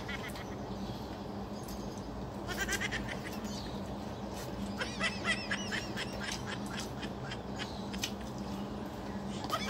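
Slurping and chewing of cup ramen noodles, with wet mouth clicks and two runs of quick squeaky chirps, about two and a half seconds in and again at about five seconds, over a steady low hum.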